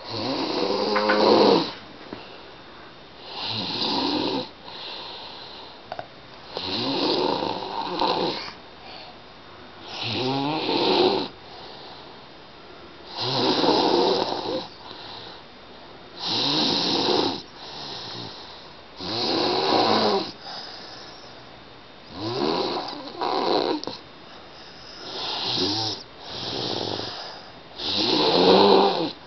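A person snoring in sleep: about ten snores, one every three seconds or so, each rising and falling away, with quieter breathing between them.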